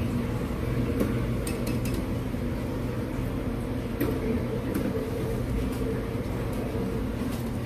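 Steady hum of snack-bar kitchen machines, with a few light clicks and clinks of food preparation.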